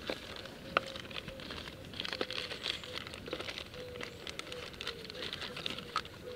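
Thin plastic crinkling and crackling irregularly as gloved hands handle a plastic sample bag, with disposable plastic gloves rustling against it.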